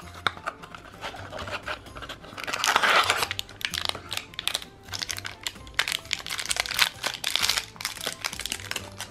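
Thin metallic foil wrapper crinkling and crackling as it is pulled open by hand, in an irregular run of crinkles, loudest about three seconds in.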